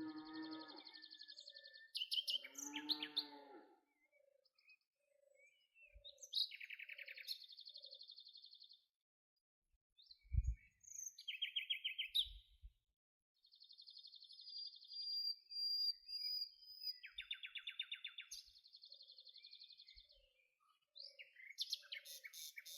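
Several birds calling in turn: high, fast trills and buzzy chirps, with a lower, fuller call twice near the start and a soft low note repeating about twice a second between phrases.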